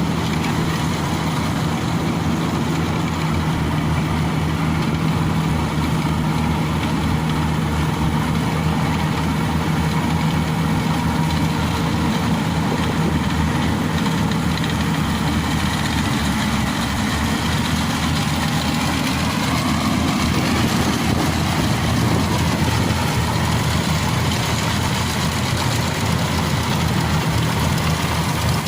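Yanmar AW70V rice combine harvester's diesel engine running steadily, a continuous hum.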